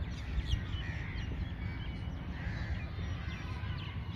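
Birds calling outdoors: a mix of short chirps and a couple of harsher, rounder calls about one and a half and two and a half seconds in, over a steady low rumble.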